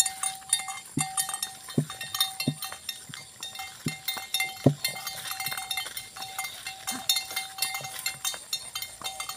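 A draught cow's hooves clacking on wet asphalt at a walk, a strike about every three-quarters of a second, as it hauls a loaded wooden cart uphill; its feet are not gripping the rain-slick surface. A steady ringing tone sounds under the steps and breaks off a few times, with small rattling ticks from the cart.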